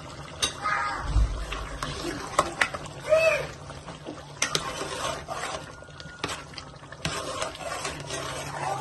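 Chicken breast bhuna being stirred in a cooking pot: irregular clicks, knocks and scrapes of the spoon against the pan, over the low bubbling of the chicken cooking in its own released water. A dull low thump comes about a second in.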